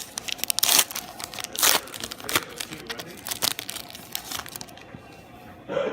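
Trading-card pack wrapper crinkling and tearing, in a run of sharp rustles that die down near the end.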